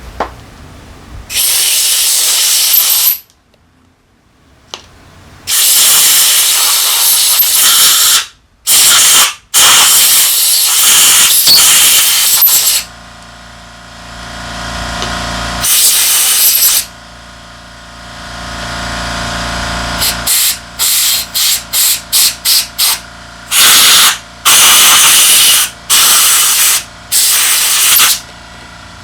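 Loud hissing spray blasts during carburetor cleaning: several long blasts of a second or more, then a run of quick short ones near the end. A steady low hum runs between the blasts from about halfway.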